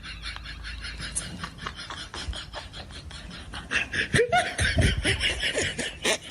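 Laughter in quick repeated bursts, getting louder about four seconds in.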